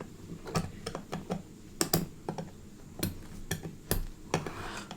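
Plastic Lego pieces clicking and clattering as they are handled and fitted together: a dozen or so sharp, irregular clicks.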